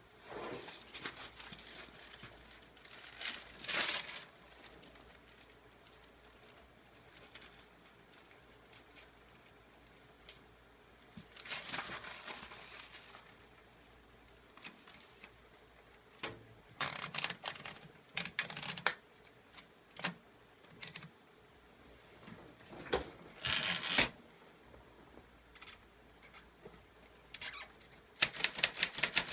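Clover Top Star 10s typewriter, typed without an ink ribbon: scattered rustles and clunks for most of the time, then near the end a fast, even run of loud key strikes begins, about six a second.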